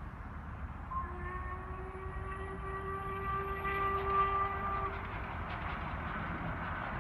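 Steam whistle of LMS Princess Coronation class Pacific 6233 Duchess of Sutherland: one long, steady blast starting about a second in and lasting about four seconds. The train's running noise grows louder near the end as it approaches.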